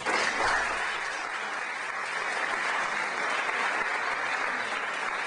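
Audience applauding, starting suddenly at the close of a speech and holding steady.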